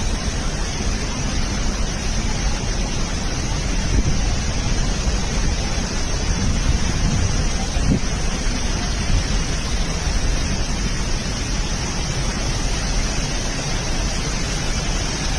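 Floodwater rushing out through the opened floodgates of a lake's spillway: a steady, loud roar of water that stays even throughout.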